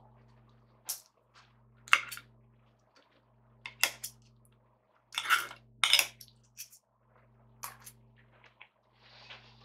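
Metal knife and fork clinking and scraping against a ceramic plate while cutting food: sharp short strokes about once a second, with a longer scrape about five seconds in. A steady low hum runs underneath.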